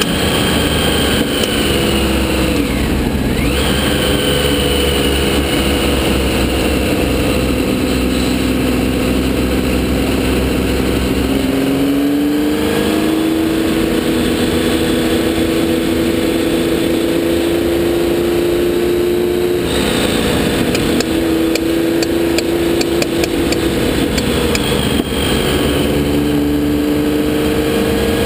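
Porsche 917K's air-cooled flat-twelve racing engine heard from onboard the car at speed, its pitch rising and falling as it is driven through the lap. The pitch jumps sharply about twelve seconds in and again about twenty seconds in, as gears are changed.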